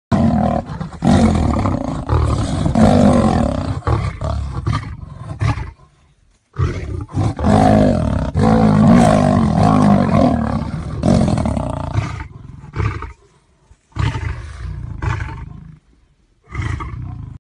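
Big cat growling and roaring loudly in long, rough, low-pitched bouts, broken by brief pauses about six, thirteen and sixteen seconds in.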